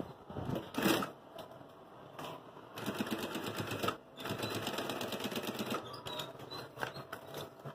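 Industrial sewing machine stitching a synthetic bag panel in two quick runs, each a second or two long, with a brief stop between them. A knock and a rustle of the material being handled come first, about a second in.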